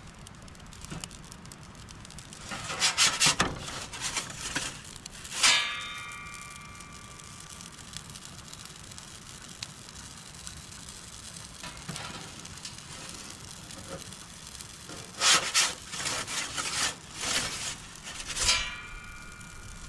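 Perforated metal pizza peel scraping and knocking against the baking stone and metal rim of a charcoal pizza oven, in two bouts: one about three seconds in, ending in a ringing metallic clang, and another near the end, again ending in a ringing clang. A steady low hiss of the charcoal fire lies underneath.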